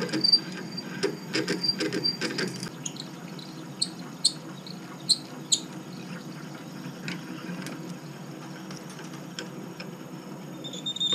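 Twist drill squealing as it bores into an aluminium block turning in a lathe chuck, over the steady hum of the lathe. A high squeal holds for the first couple of seconds, then comes in short chirps around four to five seconds in. The squeal is the sign of a blunt drill that needs sharpening.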